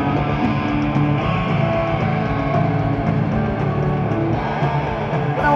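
Punk rock band playing live, with strummed electric guitars and bass guitar.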